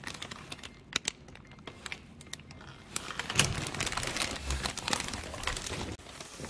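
Handling noise of a phone being carried through a front door: rustling and scattered clicks, busier from about three seconds in, with a louder knock about three and a half seconds in and a low thud a second later.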